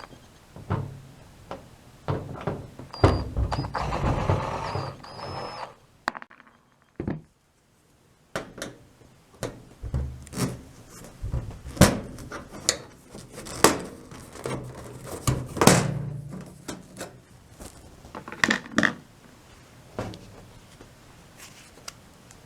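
Irregular knocks, clunks and rattles of clothes-dryer parts being handled during disassembly, with a dense rattling stretch early on and a short pause about a third of the way in.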